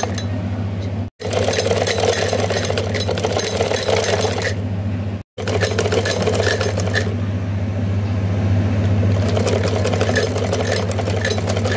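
Black domestic sewing machine running steadily, its needle stitching piping onto a suit. The sound cuts out to silence briefly twice, about a second in and about five seconds in.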